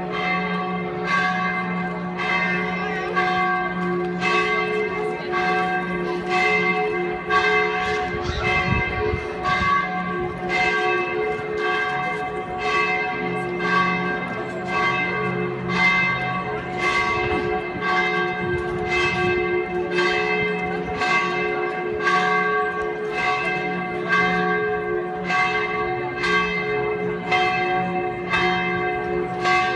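Church bells ringing in a steady, even peal, a stroke about every second, with the ringing hum carrying on between strokes.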